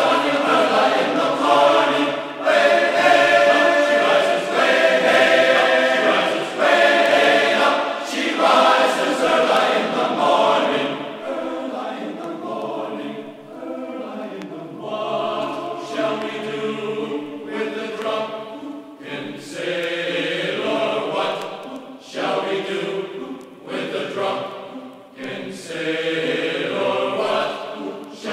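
Soundtrack music: a choir singing slow, held chords.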